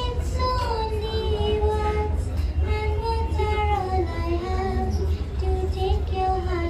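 A young girl singing unaccompanied, holding long sustained notes that glide from one pitch to the next, over a steady low rumble.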